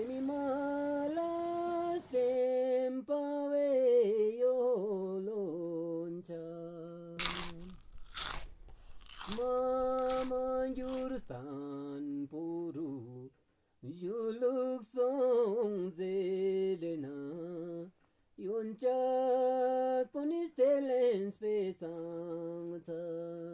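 A single voice singing a slow melody in phrases, with long held notes. About a third of the way in the singing breaks off for a moment of loud crackling or knocking.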